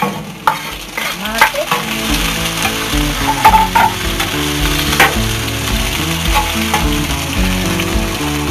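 Chopped tomatoes dropped into hot oil in a glazed clay cazuela start sizzling with the frying onion, garlic and chiles. A fork stirs them with a few clicks and scrapes against the pan, and the frying hiss builds about two seconds in and stays steady.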